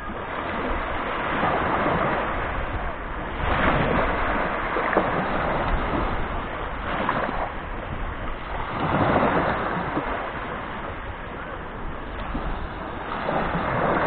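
Small Black Sea waves breaking and washing up on the beach, swelling every few seconds, with wind rumbling on the microphone.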